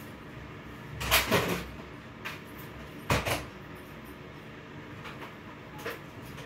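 Household knocks and bangs: a clattering bang lasting over half a second about a second in, a sharper bang about two seconds later, then a few light clicks, over faint steady background noise.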